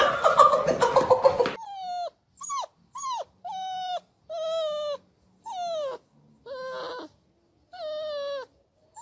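A small curly-coated dog whining in a run of about eight short cries, each dropping in pitch at its end, with silent gaps between them. Before the cries, a second and a half of loud jumbled noise cuts off abruptly.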